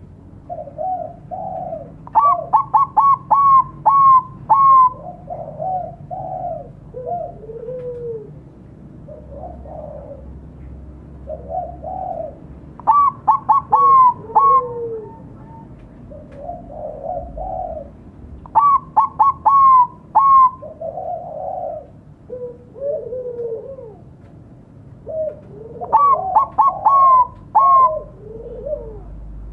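Bangkok-strain zebra dove (perkutut) cooing its song. There are four bursts of five or six quick, clipped coos, the loudest part, with softer, lower coos between them.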